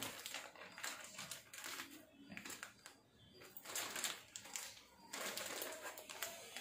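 Plastic protective sleeve and foam packing inserts of a new laptop rustling and crinkling as they are handled, with irregular crackles and light scrapes.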